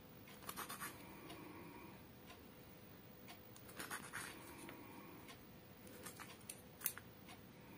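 Small knife blade slicing through a soft clay log and scraping on floor tile: faint scratches and short clicks in three clusters, one near the start, one around the middle and one near the end.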